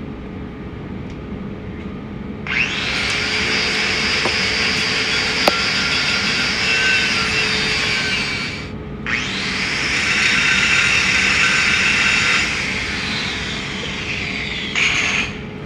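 Angle grinder grinding on a steel weld test plate: two long grinding passes with a brief lift-off about nine seconds in, then easing off, with one short touch near the end.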